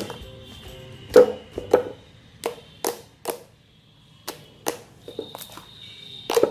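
Hands poking and squishing a glossy white glue slime, giving about a dozen sharp, sticky clicks and pops at irregular intervals.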